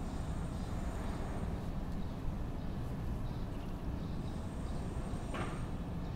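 Steady low rumble of distant traffic in a residential area, with a faint high whine that comes and goes and a brief higher sound about five seconds in.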